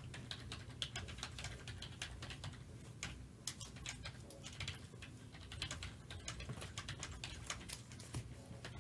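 Trading cards being flipped through one by one in a gloved hand: a run of soft, irregular clicks and snaps, several a second, as each card slides off the stack.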